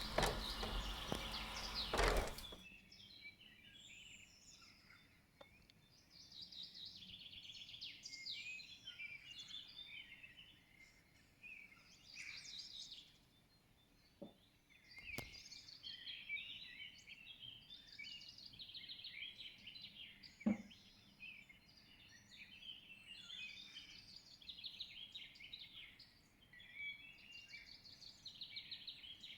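A loud rushing noise for about the first two seconds cuts off, then several small birds chirp and trill almost continuously, with a few soft knocks in between.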